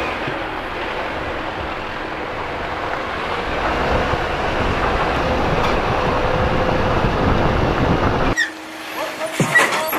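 Jeep driving along a rough dirt track: a steady rumble of engine, tyres and wind, growing a little louder partway through. It cuts off abruptly about eight seconds in, leaving a quieter steady hum with a few clicks and short chirps.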